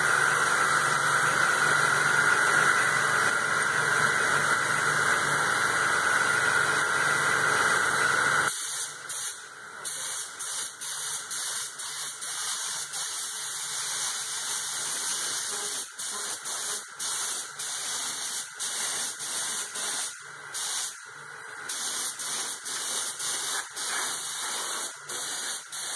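Compressed-air paint spray gun hissing as paint is sprayed. For the first eight and a half seconds a steady running motor with a low hum sits under the hiss, then stops. After that the hiss comes in short bursts with brief gaps as the trigger is pulled and released.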